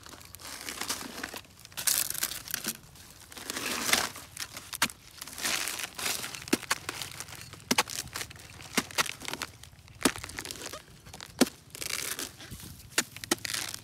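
A hoe and a hatchet chopping into a rotten, fibrous sugar palm trunk, tearing and crunching through the crumbly wood and dry fibres. Hands pull the fibres apart, and there are sharp knocks of blade on wood, more of them in the second half.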